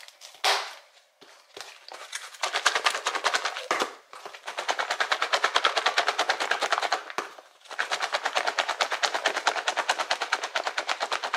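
Rapid, evenly spaced clicking in three long runs with short breaks between them.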